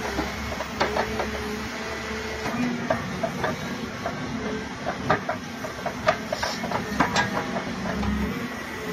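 Excavator engine running steadily under hydraulic load while a Groeneveldt Stronken Killer 1270 stump shear grips and wrenches a tree stump, with irregular sharp cracks and snaps of splitting wood and tearing roots, the loudest a few seconds apart near the middle and end.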